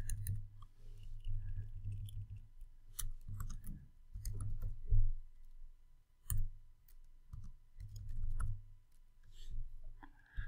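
Typing on a computer keyboard: quiet, irregular key clicks in short runs with pauses between them.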